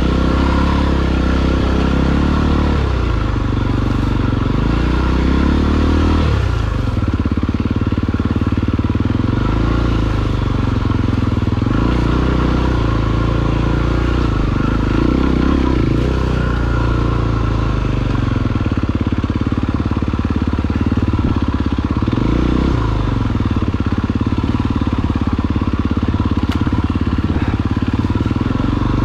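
KTM 250 EXC-F single-cylinder four-stroke enduro bike engine running at low to moderate revs, the pitch repeatedly dropping and picking up again as the throttle is closed and opened on a rocky downhill.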